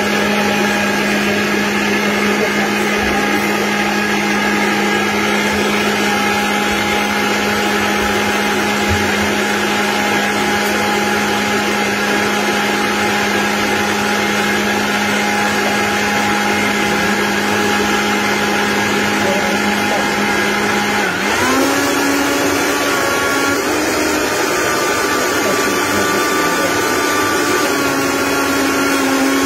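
Vitamix blender motor running hard, blending a smoothie of fruit, oats, almond milk and ice. It gives a steady loud whir, and its pitch steps up about two-thirds of the way through as the speed is raised.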